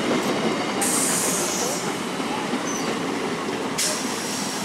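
An electric multiple-unit suburban local train running past close by along the platform, a steady rumble of wheels and coaches. Two spells of high-pitched hiss cut in, about a second in and again near the end.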